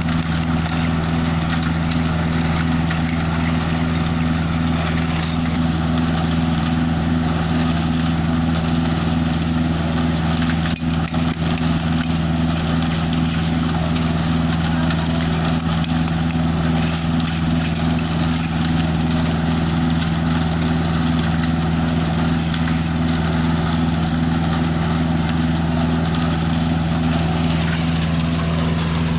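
The diesel engine of a self-loading concrete mixer runs at a steady speed, with a low, even drone and no change in pitch.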